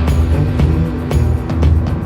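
Background music with a strong bass line and a steady drum beat.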